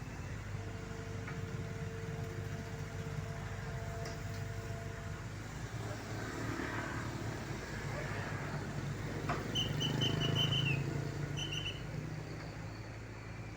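Heavy construction machine's diesel engine running steadily while it lifts concrete U-ditch segments. A short run of high chirps comes about ten seconds in.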